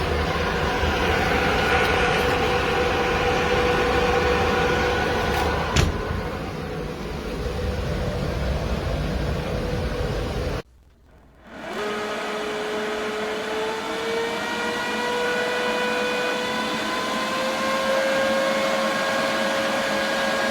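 Inline duct fan running, with a steady whine over a rush of air. About ten seconds in the sound cuts out briefly; it then returns with the whine slowly rising in pitch.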